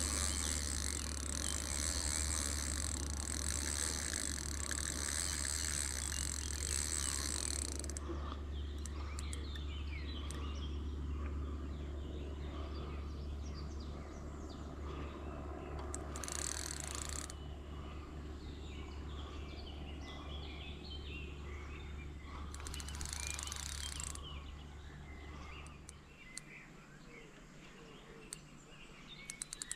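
Fishing reel working while a hooked carp is played on a hard-bent rod: two short bursts of ratcheting reel noise about halfway through, and a few clicks near the end. Birds chirp throughout, a high insect trill stops about eight seconds in, and a low steady rumble stops near the end.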